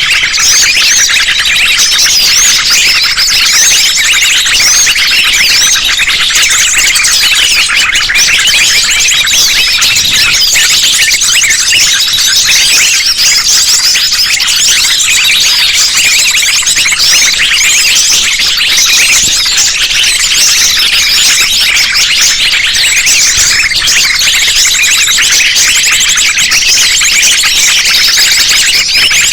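A dense, loud chorus of many small birds calling at once: rapid, high-pitched chirps, twitters and trills overlapping without pause. It is a combined lure-call recording of sunbirds, spiderhunters, minivets and other small birds, used to draw wild birds in.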